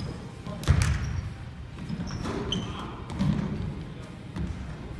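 A basketball bouncing and thudding on a hardwood gym floor during a scrimmage, the loudest thud a little under a second in. A few short high squeaks come about two seconds in.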